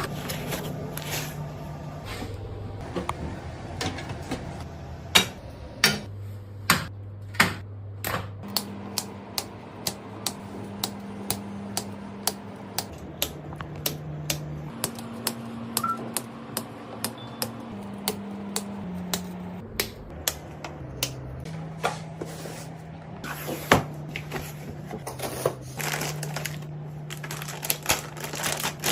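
Irregular sharp clicks and taps of hard parts being handled and fitted during a PC assembly, roughly one or two a second, over a low steady hum that shifts pitch every second or two.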